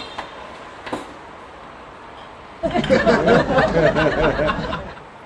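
A person laughing for about two seconds, starting around the middle, after two short knocks near the start.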